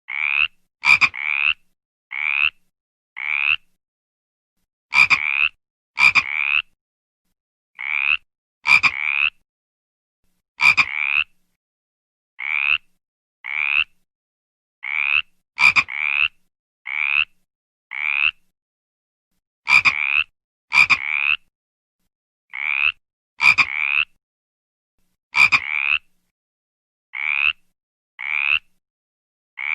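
A frog croaking in short separate calls, roughly one a second at an uneven pace and sometimes two in quick succession. Each croak rises slightly in pitch, and the loudest ones open with a sharp click.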